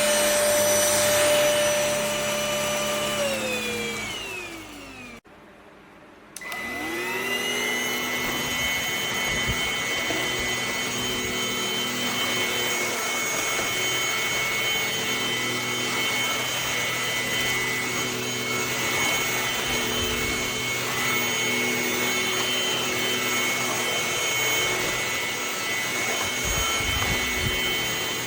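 Tdyon cordless stick vacuum's motor running with a high whine. About four seconds in it winds down and stops briefly, then spins back up and runs steadily again.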